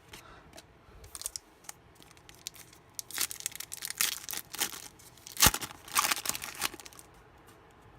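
A trading card pack's wrapper being torn open and crinkled: a run of irregular crackling rips, the sharpest about five and a half seconds in.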